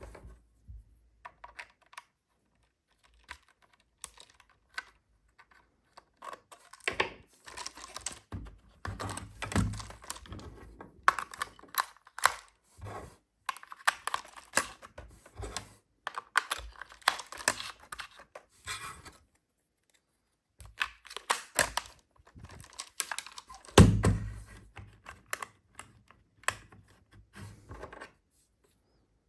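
Plastic packaging and toy-car parts being handled during an unboxing: irregular clicks, taps and rustling in clusters, with a louder thump about 24 seconds in.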